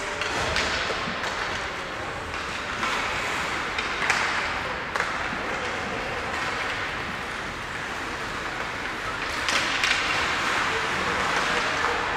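Ice hockey play: skates scraping over the ice, with several sharp clacks of sticks on the puck and scattered shouts from players.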